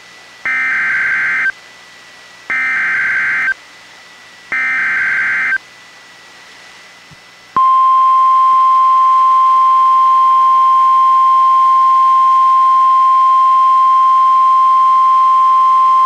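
NOAA Weather Radio Specific Area Message Encoding (SAME) alert header, received on a Reecom R-1630 weather radio: three one-second bursts of screechy digital data about a second apart, the coded start of a warning. About two seconds later, at roughly seven and a half seconds in, the loud single steady warning alarm tone of NOAA Weather Radio begins and holds.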